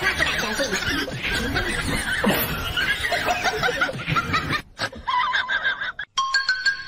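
People laughing and giggling. The laughter breaks off about five seconds in, and a few held notes of music begin near the end.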